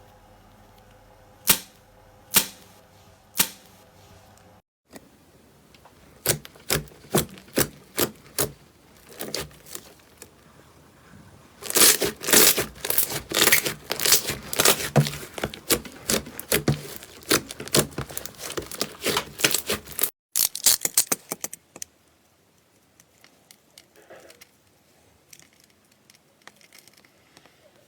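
Slime being handled, giving sharp clicks and crackling pops: a few single pops at first, then quick dense runs of clicks, and a quieter stretch of faint crackles near the end.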